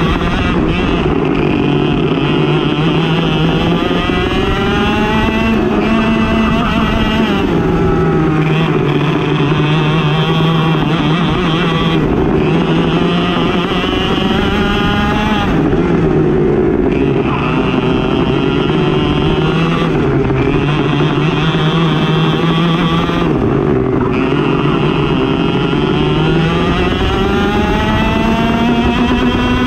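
Racing kart engine under hard throttle, its pitch climbing for a few seconds at a time and then dropping sharply as the throttle comes off, over and over through the lap.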